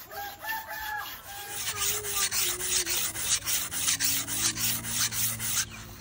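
Quick, regular rasping strokes of something being scraped by hand, a steady back-and-forth rhythm that starts about a second and a half in.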